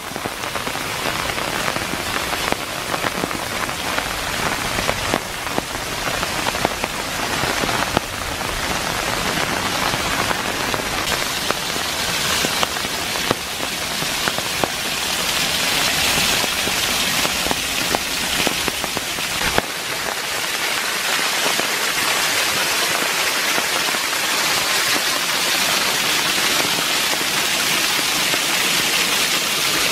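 Small rain-swollen waterfall pouring over a rock ledge and splashing onto the stones below: a steady hiss of falling water that grows a little louder about halfway through. Rain is falling as well.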